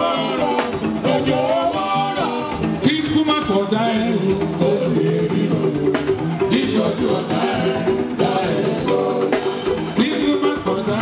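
Live juju band music: a singer's voice over a steadily played drum kit and the rest of the band.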